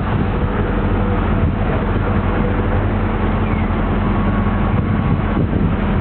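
A boat's engine running steadily, a loud low hum with a constant rushing noise over it, heard from inside the boat's cabin.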